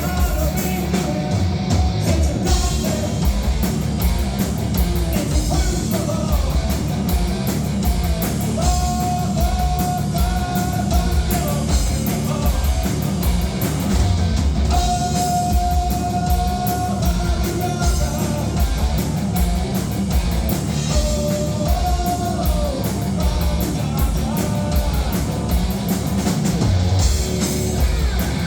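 A rock band playing live: a drum kit and guitars pounding steadily under singing, with long held notes several times.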